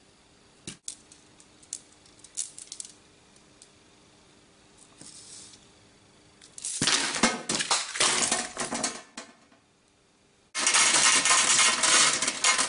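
A few scattered clicks, then bursts of dense clinking and rattling. Near the end the loudest stretch sets in: a steady, continuous clatter.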